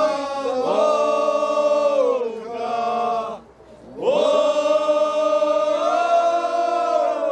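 A group of voices chanting a slow song together in unison, holding long notes that slide up and down in pitch. They break off briefly about halfway through and then start again.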